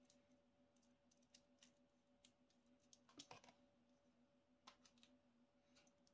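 Faint clicks and light taps of small screws and plastic lid panels being handled, with a louder cluster of clicks about three seconds in, over a faint steady hum.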